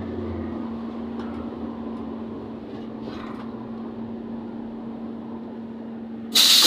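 Inside a ZiU-682G trolleybus, a steady electrical hum over low rumble as it draws up to a stop. Near the end a sudden loud hiss of compressed air, as the pneumatic doors open.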